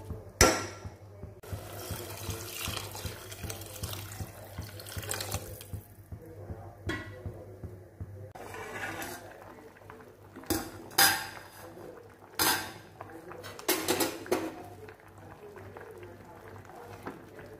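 Plastic spoon stirring and scraping inside an aluminium cooking pot, with several sharp clatters of spoon against pot. Early on there is a hissing stretch of water going into the hot pot.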